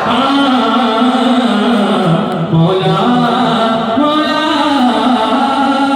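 A voice singing long, held and gliding notes over music.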